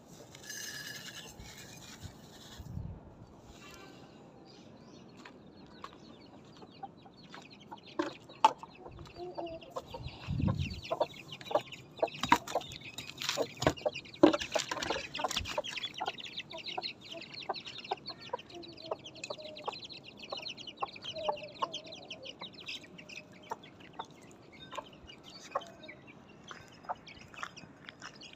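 Grain feed poured into a clay dish in the first couple of seconds. Then a hen clucks and her chicks peep while they peck at the feed, with many sharp pecking clicks.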